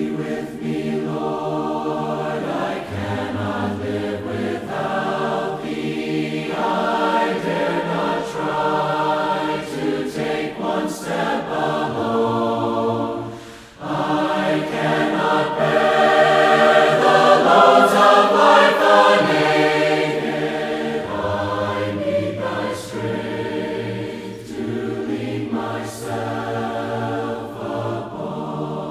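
A choir singing a hymn a cappella in several parts, in sustained phrases with a short break between two phrases about halfway through.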